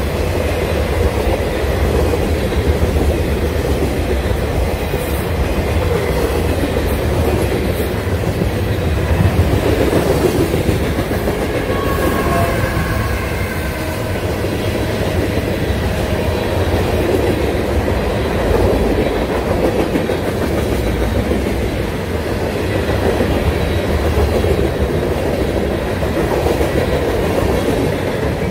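Freight train of boxcars, tank cars and covered hoppers rolling past: a steady, loud rumble of the cars' steel wheels on the rails.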